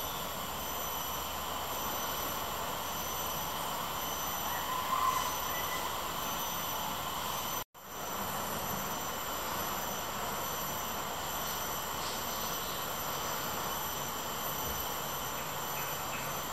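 Steady outdoor background drone: a continuous high-pitched whine over a hiss, broken off for an instant about eight seconds in.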